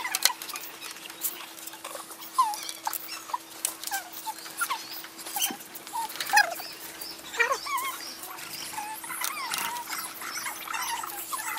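Plastic keyboard keycaps being pressed back onto their switches: irregular sharp clicks mixed with short squeaky chirps of plastic rubbing, over a faint steady hum.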